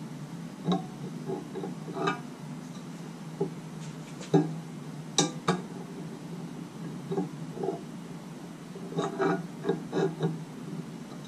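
Metal clinks and short knocks as an oil pickup tube is worked by hand into a new oil pump for a Jeep 4.0 inline-six, the press-fit tube not going in properly. The knocks come scattered and irregular, the loudest about four and five seconds in, with a quick run of them near the end.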